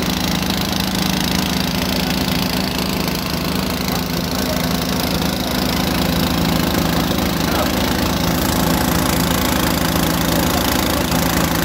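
Small engine of well-drilling equipment running steadily with a constant, even hum, a little louder about halfway through.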